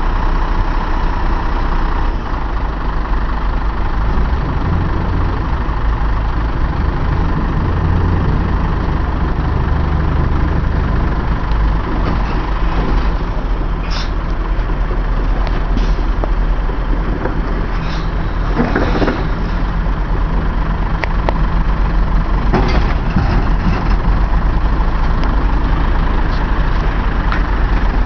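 Scania military hooklift truck's diesel engine running steadily while its hydraulic hook arm sets a container body down on the ground, with several sharp metallic clanks about halfway through and again later as the body settles and the truck pulls forward off it.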